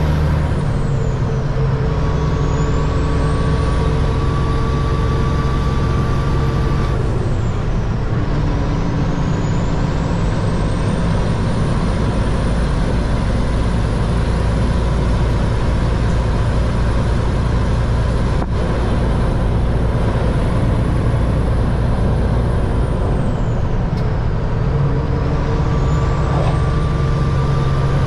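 Peterbilt 379 semi-truck's diesel engine running steadily, a loud continuous low rumble that shifts a little in pitch a few times.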